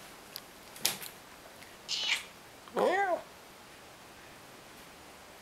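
A nearly 19-year-old ginger cat gives one short meow that rises and falls in pitch, about three seconds in. A faint click and a brief rustle come before it.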